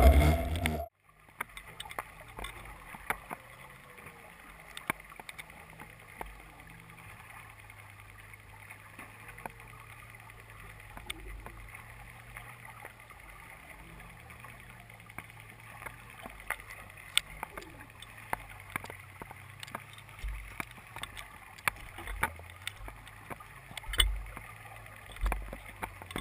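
Muffled underwater sound picked up by a camera on a fishing line: a faint hiss of water with scattered sharp clicks and a steady low hum. A louder low rumble cuts off about a second in, and a few low thuds come near the end.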